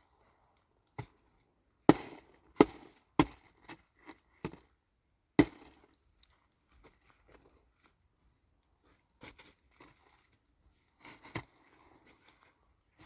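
A series of sharp knocks, about eight in quick succession over the first half, the loudest at about two and five seconds in, then a few softer knocks near the end.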